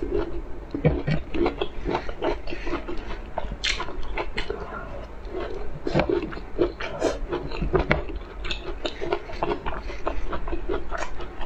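Close-miked chewing and biting of a person eating, a dense run of short crackles and clicks.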